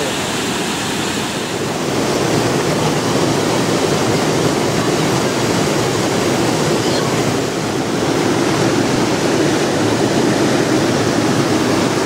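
River water pouring through the gates of an old concrete weir into the pool below: a steady rush of falling water.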